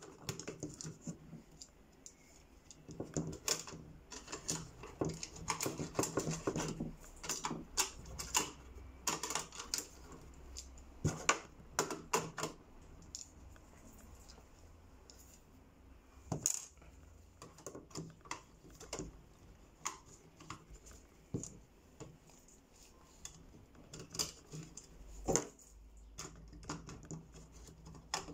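Irregular clicks, taps and light clatter of small hard parts and hand tools being handled on a tabletop: screwdriver bits in their holder and a screwdriver knocking against parts. The clicking is busiest in the first half.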